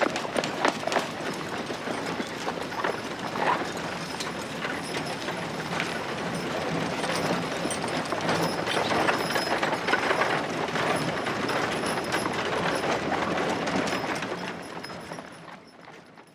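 Old-west street ambience: horse hooves clip-clopping amid the dense rattling clatter of a horse-drawn carriage rolling by, fading out over the last couple of seconds.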